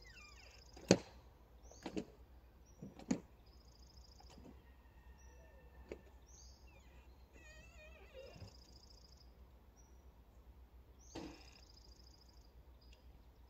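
Small birds chirping and trilling, with a few sharp knocks: the loudest about a second in, two more a second apart after it, and another near the end.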